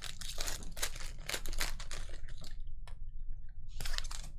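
Sports trading cards being flipped and shuffled by hand: a dense run of rustles and clicks that thins out after about two and a half seconds, with one louder rustle near the end.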